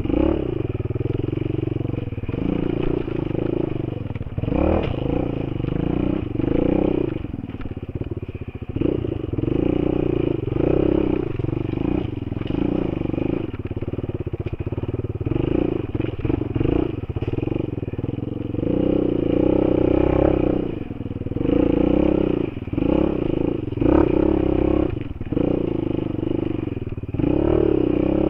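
Enduro dirt bike's engine running under load, its revs surging up and down in short bursts with the throttle.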